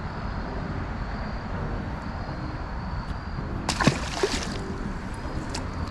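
A striped bass released back into the river hits the water with one short splash about two-thirds of the way in.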